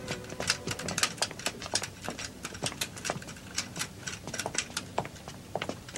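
Quick, irregular clicking and clacking of small hard objects, several knocks a second.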